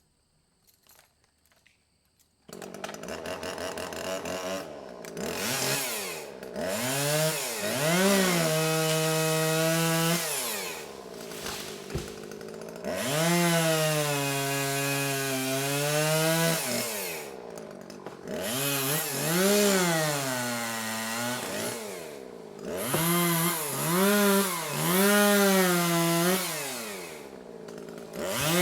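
Chainsaw starting about two and a half seconds in, then revved up and down about five times, its pitch rising to a steady high note, held for a second or more, and falling back toward idle, as it cuts through small trees.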